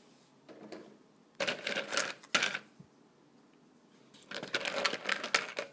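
Rattling and clicking of hard plastic perler bead pieces being handled and shifted on a wooden table, in three bursts of clatter.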